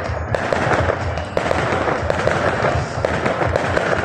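Fireworks display: aerial shells bursting, with a dense, rapid crackle of many small pops and bangs.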